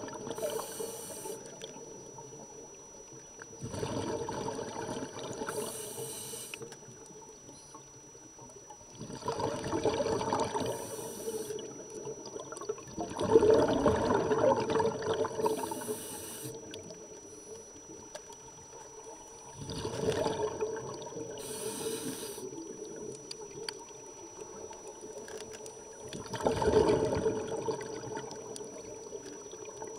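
A scuba diver breathing through a regulator underwater: a short hiss on each inhale, then a longer gush of bubbling exhaust on each exhale. There are about five breaths, one every five to six seconds.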